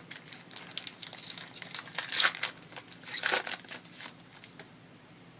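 Crinkling of a trading-card pack wrapper as it is handled and torn open, loudest in two bursts near the middle, then fading out.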